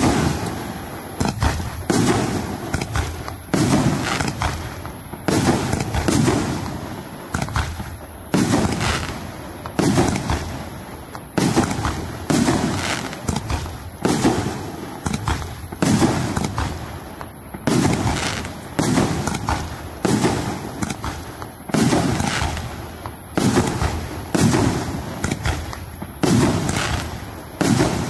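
A 2.5-inch, 36-shot shell cake firing its shells in steady succession, about one a second, each a sharp bang that tails off.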